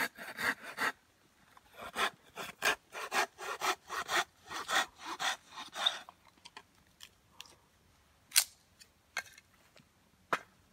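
Knife shaving a stick of kindling into a feather stick against a wooden block: a quick run of scraping strokes, about three a second, that stops about six seconds in, followed by a few scattered light knocks.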